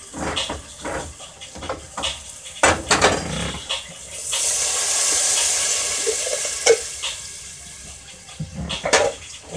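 A hand-held can opener clicks and grinds around the rim of a can of broth. Then the broth pours from the can into a hot pot of onion and celery cooked in butter, hissing and sizzling steadily for about four seconds before fading.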